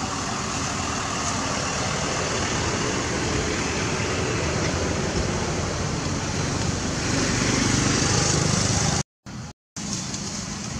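Steady outdoor background noise, a low rumble with hiss and no distinct calls, which cuts out twice briefly near the end.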